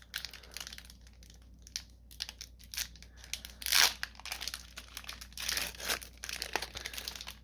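Foil wrapper of a Magic: The Gathering booster pack crinkling and tearing as it is opened by hand, in scattered crackles with a louder crackle about four seconds in.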